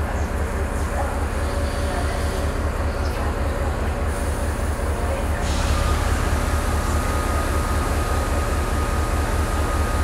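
Diesel engine of a Class 68 locomotive, a Caterpillar C175-16 V16, running at idle with a deep rapid throb. About five and a half seconds in, a steady high whine joins and the sound gets a little louder.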